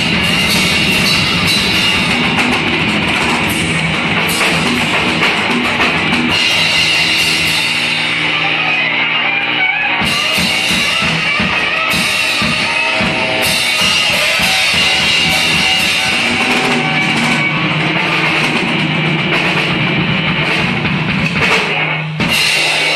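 Live rock band playing electric guitar and drum kit, loud and continuous, with a brief break near the end.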